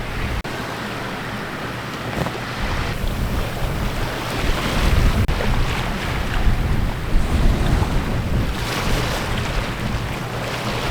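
Wind buffeting the microphone over the steady rush of sea water along a sailing yacht's hull while under sail.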